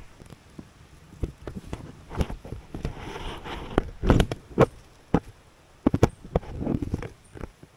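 Footsteps through leafy undergrowth: rustling leaves and an irregular string of sharp knocks and snaps, the loudest about four to six seconds in.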